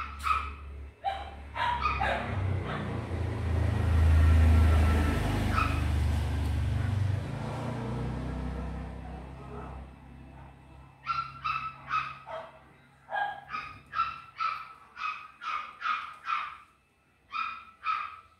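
A small dog yapping in quick runs of short high barks, about two a second, at the start and again through the last seven seconds. In between, a vehicle passes with a low rumble that swells, loudest about four to five seconds in, then fades.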